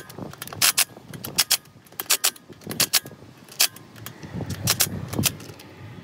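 Sharp metal clicks and clinks, many in close pairs, from a steel socket and extension being fitted to and worked on the cap screws of a manual locking hub.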